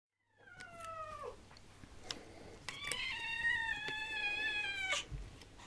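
Siberian cat meowing twice: a short meow that falls in pitch about half a second in, then a longer, drawn-out meow from about three seconds in that sags slightly and ends suddenly.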